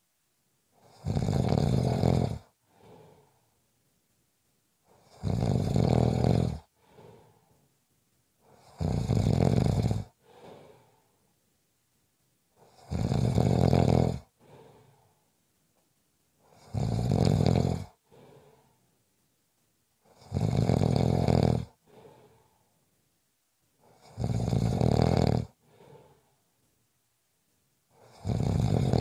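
A sleeper snoring: eight loud snores, about one every four seconds, each followed by a short faint breath out.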